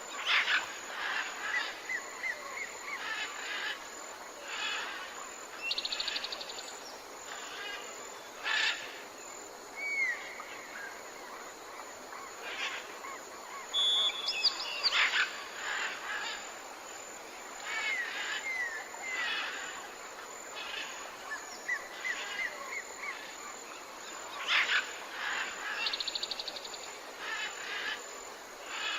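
Forest birdsong: several birds calling over and over, with short downward whistled notes, sharp chirps and a fast buzzy trill heard twice, over a steady soft hiss.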